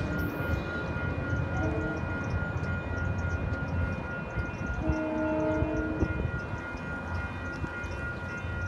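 Diesel-hauled passenger train pulling away, a steady low rumble, with a short horn blast about five seconds in. A grade-crossing bell rings steadily over it.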